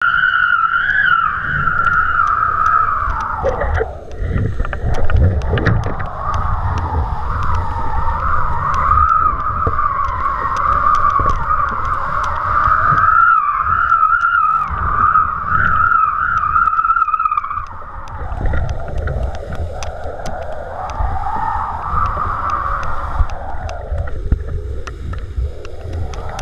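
Wind rushing past a camera mounted on kite lines, with low buffeting and a high whistle that wavers in pitch and drops out a few times as the kite moves.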